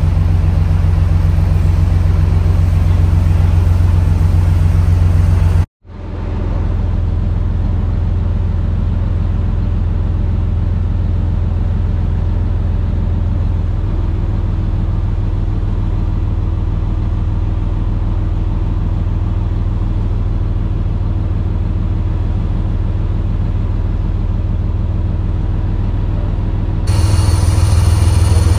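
Steady low drone of a moving motor vehicle. It cuts out suddenly about six seconds in and fades back up, then gets louder and brighter near the end.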